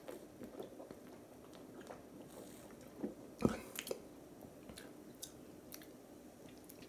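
Quiet swallowing and mouth sounds of a person drinking from a glass bottle and tasting, with small clicks throughout and a few louder short mouth sounds between three and four seconds in.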